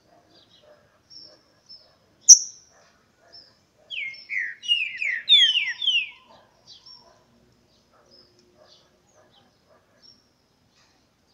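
Green-winged saltator (trinca-ferro) singing: a single sharp high note about two seconds in, then about four seconds in a quick phrase of some eight loud whistled notes, each sliding down in pitch. Faint high chirps come between the phrases.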